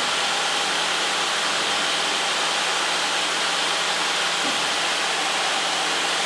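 Steady cockpit noise of a light aircraft in level cruise flight: the engine and airflow make an even hiss with a faint steady hum, unchanging throughout.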